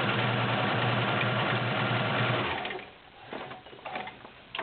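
Vintage all-metal Kenmore model 1755 sewing machine with a 1.2 amp motor, running at a steady speed as it stitches through four layers of leather. It stops a little past halfway, and a few light clicks follow, ending with a sharper click.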